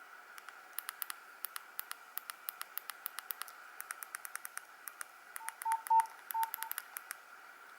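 Nokia 113 mobile phone's keypad buttons clicking, a few presses a second, as the menu is worked. About five and a half seconds in, the phone gives a short run of quick electronic beeps.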